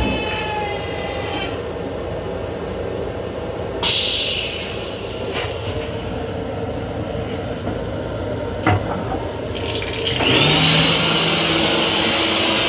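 Restroom sink faucet turning on about ten seconds in and running with a steady rush of water and a low hum under it. Before that, a steady hum with a sharp click at the start, a short hiss about four seconds in, and another click near nine seconds.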